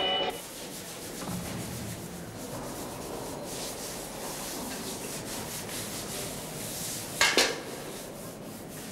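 Floorcloths scrubbed by hand over a wet, hard tiled floor: steady rubbing strokes, with one short, louder squeak about seven seconds in.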